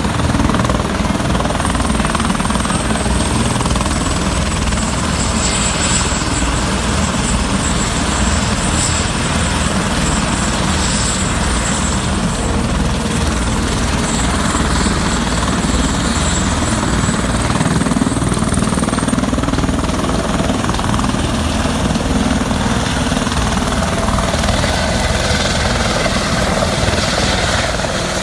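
Helicopter running: loud, steady rotor and engine noise, with a thin high whine over it for the first two-thirds.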